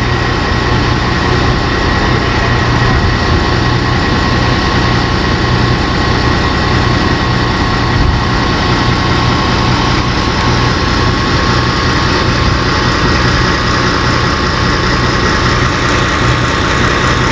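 Heavy-equipment diesel engine running steadily at idle, with a thin steady whine above it.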